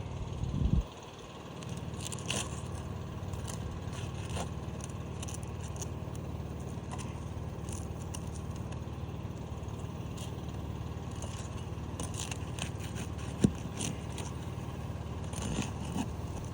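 Intermittent scrapes and clicks of asphalt roof shingles being pried and worked loose, with a louder bump about a second in and a sharp click near the end, over a steady low rumble.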